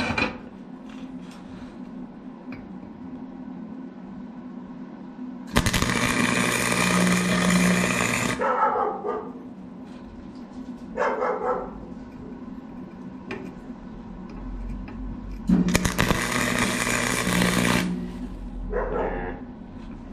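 Flux-core welder arc crackling in two short bursts of about two and a half seconds each, the first about six seconds in and the second about fifteen seconds in, over a steady electrical hum: short beads being laid on steel square tubing with a Forney FC125.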